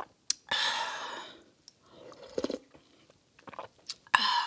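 Close-miked eating of watermelon hwachae fruit punch: a sharp click near the start, then a loud noisy sip about a second long, a short burst of chewing with a hum halfway through, and another loud sip near the end.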